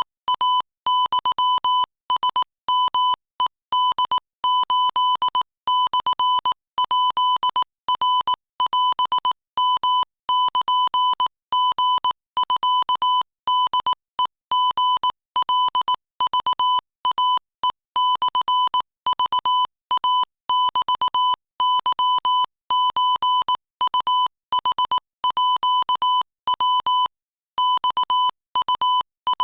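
Morse code sent at 22 words per minute as a single steady beep switched rapidly on and off in dots and dashes, with short gaps between letters and a slightly longer pause a little before the end.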